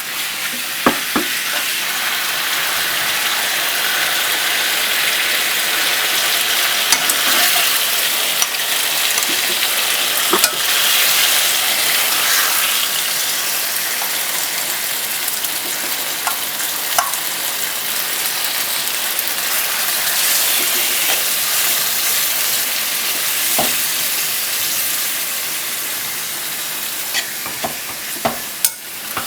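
Food sizzling in a hot pan as it is stirred, a steady high hiss with a few light knocks of a utensil against the pan.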